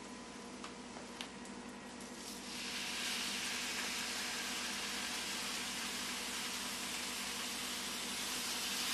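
Bacon strips laid on a hot electric griddle start sizzling about two and a half seconds in, a steady hiss that rises over the quieter sizzle of sausage patties already frying. A couple of light clicks of tongs on the griddle come before it.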